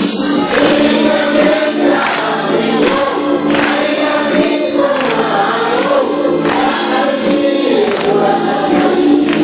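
Music with a group of voices singing together over steady accompaniment.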